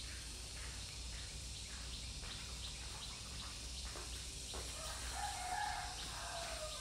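A rooster crowing once, faint and drawn out, starting a little past the middle and lasting about two seconds, dropping in pitch at the end, over a quiet steady background.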